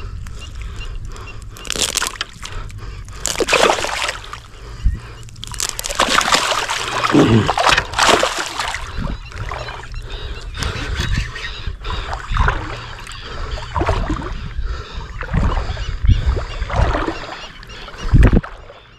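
Shallow marsh water sloshing and splashing in irregular bursts, the loudest a couple of seconds in and again around six to eight seconds.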